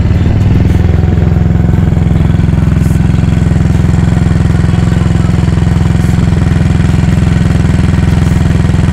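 Honda XRM 110's single-cylinder four-stroke engine idling steadily after being started up.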